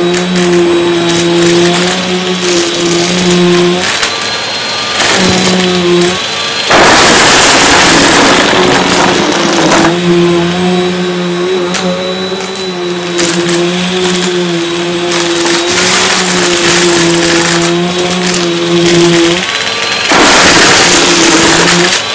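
Bissell vacuum cleaner running with a steady motor hum. Twice, about a third of the way in for a few seconds and again near the end, a loud rushing crunch as it sucks up rubber eraser caps, buttons and beads.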